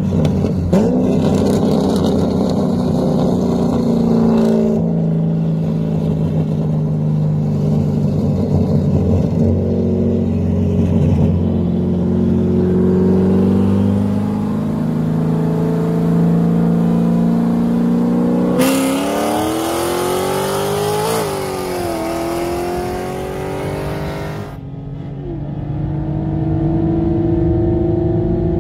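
Two cars accelerating hard side by side in a street race, a C6 Corvette with an LS3 V8 among them, heard from inside one car. The engine note climbs in long sweeps and drops back at each gear change, several times through the gears, and is loudest and rawest near the end.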